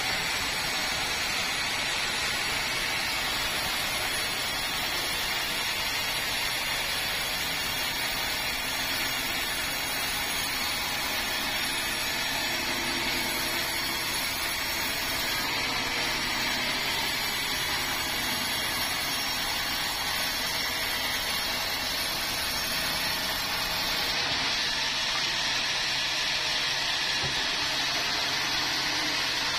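Band sawmill blade cutting through a large red meranti log: a steady, loud hiss-and-whine of the band saw in the wood, with the machine running underneath. The tone shifts slightly about 24 seconds in.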